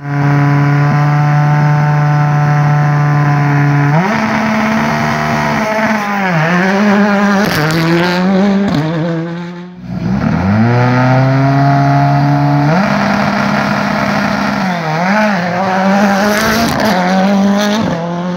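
Ford Fiesta R5 rally cars' turbocharged four-cylinder engines at a stage start. Each holds a steady rev for a few seconds, then the pitch jumps up as the car launches and rises and dips through quick gear changes as it pulls away. The sound breaks off briefly just before the middle, and a second car does the same.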